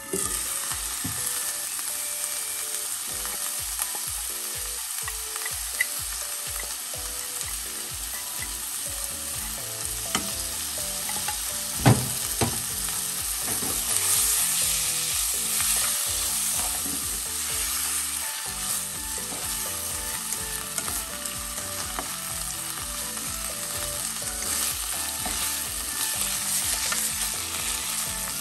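Cabbage, carrot and canned tuna sizzling as they are stir-fried in a frying pan, the hiss jumping up as the glass lid is lifted. A spatula scrapes and taps against the pan now and then, with one sharp knock about twelve seconds in.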